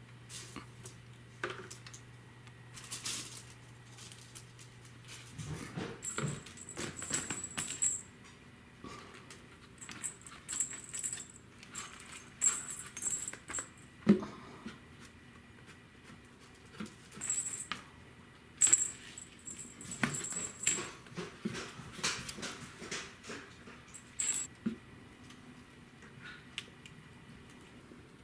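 Cats playing among paper Christmas toys on a hardwood floor: scattered rustling, crinkling and light knocks as a paper catnip bucket, crinkle balls and a crinkle tunnel are pushed about, with one sharper knock about 14 seconds in.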